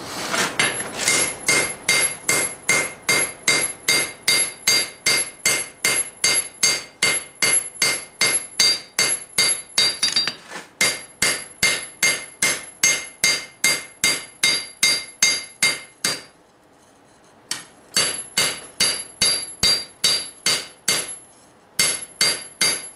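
Hand hammer striking red-hot steel on an anvil at a steady pace of about three blows a second, each blow ringing: a blacksmith forging the bevel on a froe blade. The hammering stops for about a second and a half about two-thirds of the way in, then resumes, with another brief pause shortly before the end.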